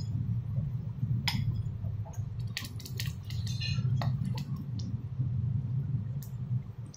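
Metal fork clinking and scraping against a stainless steel frying pan as fried potato slices are turned and lifted out. The clinks are scattered, with a quick run of them in the middle, over a steady low hum.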